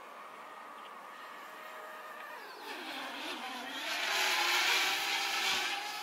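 Parrot Bebop 2 quadcopter's propellers and motors whining as it flies fast in sport mode, growing louder from about two and a half seconds in, the pitch dipping and shifting as it manoeuvres.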